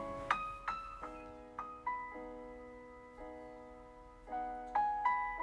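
Background music: solo piano playing a slow, gentle melody of single notes over soft chords.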